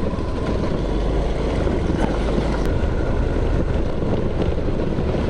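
Honda Lead 125 scooter's single-cylinder four-stroke engine running at a steady cruise, mixed with rough wind and road noise.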